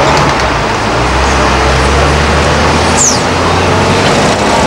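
Heavy diesel engine running, its low drone swelling about a second in and easing off shortly before the end, over a steady wash of road noise. A brief high squeak comes about three seconds in.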